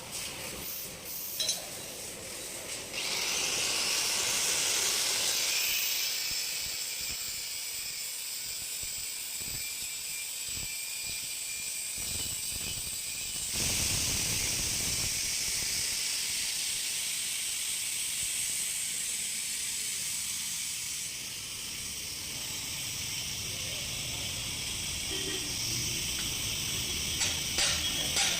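Steady high-pitched hiss that grows louder about three seconds in and shifts in character partway through, with a few sharp clicks near the end.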